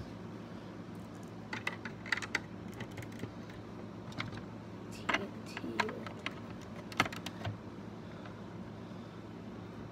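Plastic Lego bricks clicking and clattering as they are handled during building: scattered clusters of sharp little clicks, the loudest about seven seconds in, over a steady low hum.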